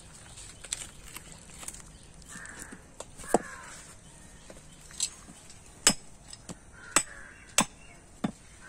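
Cleaver chopping into an animal's skull on a wooden chopping block: six or so short, sharp knocks spread over the second half. Birds call a few times in the background.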